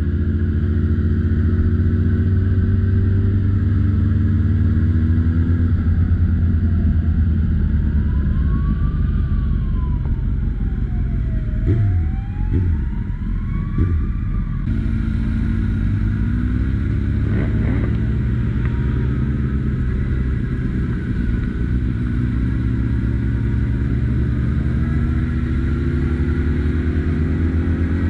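Motorcycle engine running under way, its revs dropping around twelve seconds in and building again after about fifteen, over steady wind and road noise.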